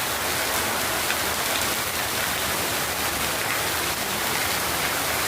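Rain falling steadily: an even hiss with scattered sharper drop hits.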